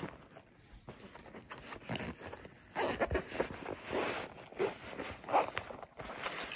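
Zipper on a small soft-sided Ozark Trail camp kitchen case being drawn open in several short pulls, mostly in the second half, with the fabric case being handled.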